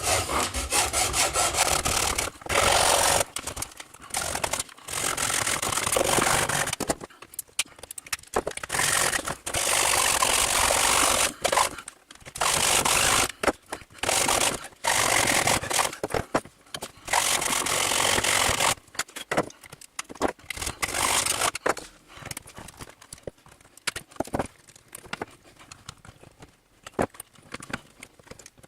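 A hand-worked saw cutting into a Dyson vacuum's motor housing in rough back-and-forth strokes that stop a little after the twenty-second mark, followed by lighter scraping and clicks.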